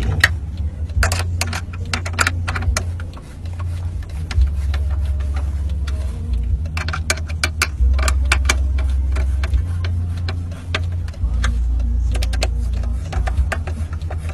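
Irregular clicks and taps of a hand screwdriver driving screws into a plastic rear-seat air vent grille, in clusters, over a steady low rumble.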